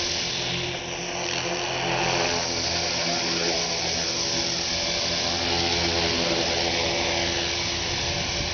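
T-Rex radio-controlled helicopter's motor and rotors whining steadily in flight, the higher whine gliding up and down in pitch every few seconds as it moves about in gusty wind.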